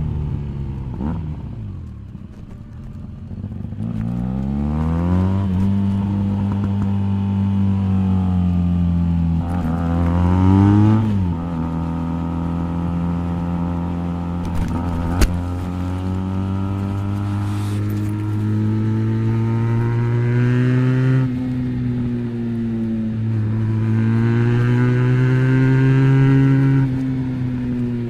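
Benelli BN302's parallel-twin engine breathing through an Arrow exhaust with the dB killer fitted, held at a steady fast idle and revved in slow rises and falls, with one quick climb and sharp drop about ten seconds in. A single sharp click about fifteen seconds in.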